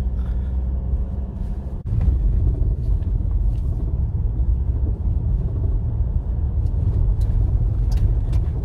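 Steady low rumble of road and engine noise heard from inside a Ford Ranger's cabin while it drives along, with a brief sudden drop about two seconds in.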